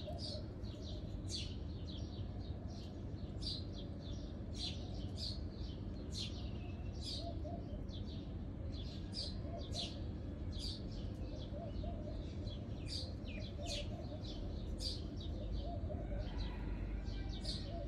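Bulbul chirping over and over in short, high, sharp notes, about two a second, over a steady low background rumble.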